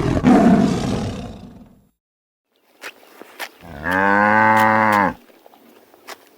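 A large animal's rough roar, fading out about two seconds in; after a short silence, a steady low call of about a second and a half, with small clicks and rustling around it.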